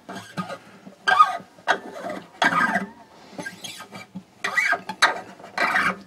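Fingers pulling and rubbing along new strings on a Seagull S6 acoustic guitar to stretch them in. This makes a series of short squeaky scrapes, about seven in all, at irregular intervals.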